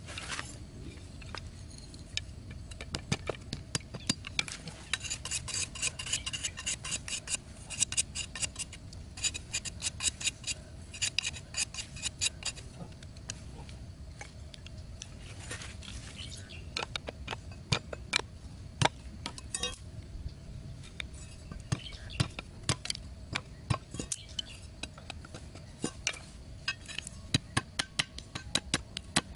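Thin wooden sticks clicking and knocking against one another as they are handled and laid out by hand, in quick runs of sharp clicks with short pauses between.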